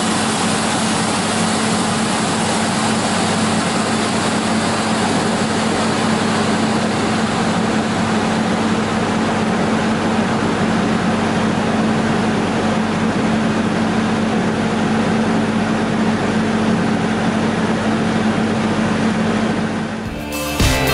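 Double-shaft multi-rip saw running steadily: a dense, even machine noise with a constant hum that neither rises nor falls. It cuts off abruptly just before the end, and music takes over.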